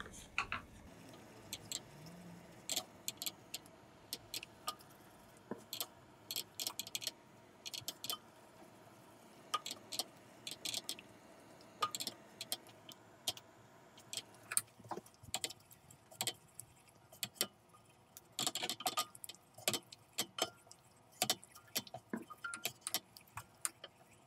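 A cooking spoon stirring and scraping a roux that is browning in a stainless steel pot: irregular light clicks and scrapes against the pot, which come more often near the end.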